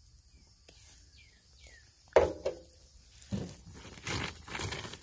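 Rock pieces knocking together: a sharp clack a little over two seconds in, a second smaller one just after, then a run of rattling and scraping as pieces are shifted in a pile of cut agatized coral. A steady high insect drone runs underneath.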